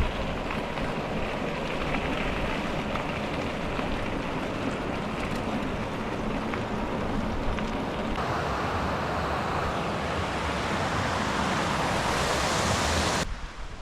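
Gale-force wind buffeting an action camera's microphone during a ride: a loud, steady rushing. It turns harsher and hissier about eight seconds in and cuts off abruptly near the end.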